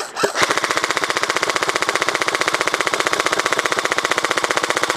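Airsoft gun firing on full auto: a couple of single shots, then from about half a second in a long unbroken burst of fast, evenly spaced shots.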